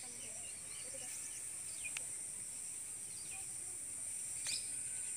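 Rural outdoor ambience: a steady high-pitched insect drone, crickets or cicadas, with scattered short bird chirps over it. Two brief sharp ticks, about two seconds in and again near the end.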